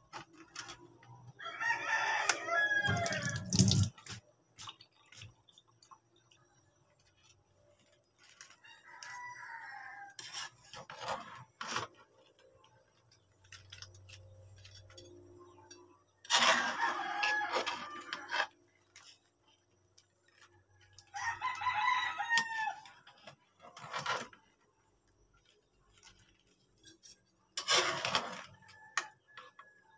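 A rooster crowing four times, a few seconds apart, one of the crows fainter than the others. Between the crows, a metal spatula scrapes and clicks against an aluminium wok as crabs and squash in coconut milk are stirred.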